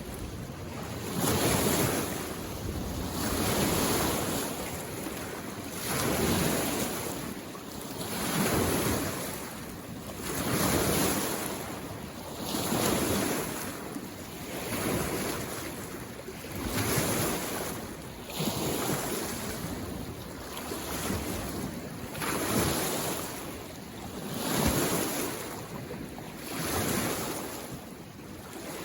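Small waves on a mountain lake washing in against the shore, one every two seconds or so in an even rhythm.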